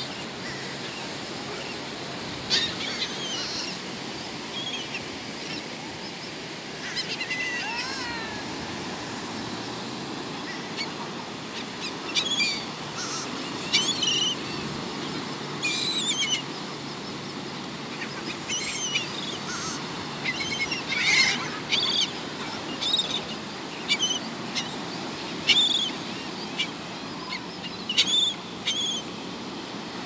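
A flock of laughing gulls calling with short, high, often falling cries, sparse at first and coming thick and fast from about halfway through, over a steady hiss of surf and wind.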